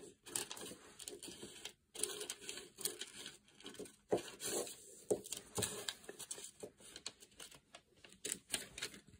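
Scissors cutting through paper pattern: a run of irregular snips, with the paper rustling and crinkling as it is held and fed to the blades.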